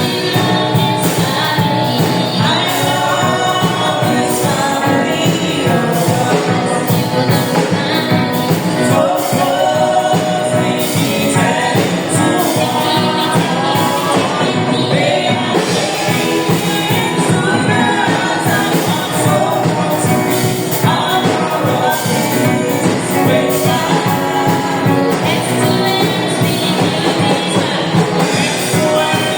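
Gospel music: voices singing over a band, steady and continuous.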